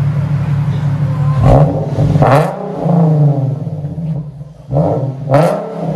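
Nissan 370Z's 3.7-litre V6 through a modified aftermarket exhaust, idling and revved in short throttle blips: twice in quick succession about a second and a half in, and again near the end.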